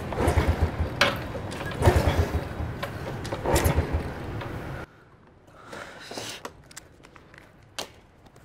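Small motorbike engine sputtering in three uneven surges, then cutting out suddenly about five seconds in. The tank has run out of petrol.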